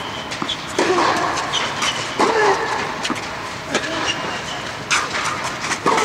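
Tennis rally on a clay court: racket strikes and ball bounces sharply every second or so, over a murmur of voices.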